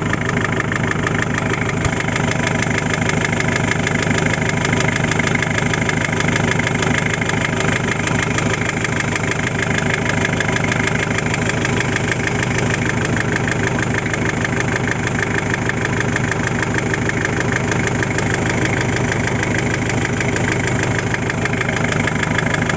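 Mitsubishi 4D56 four-cylinder diesel engine idling steadily with a regular knock running through it, a knock whose cause the owner is asking about.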